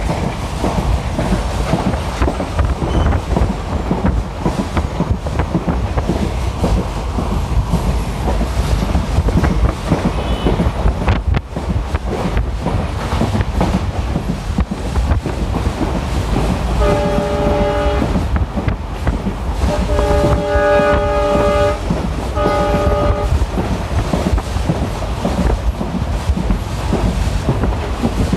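Passenger train running, with a steady low rumble of wheels on the track. In the second half the locomotive's horn sounds three times: a short blast, a longer one, then a short one.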